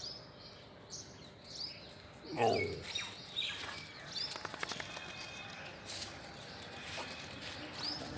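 Birds calling in the open: one short, high, curved chirp repeats every second or so, with other chirps among it. About two and a half seconds in, a louder, lower call or voice is heard.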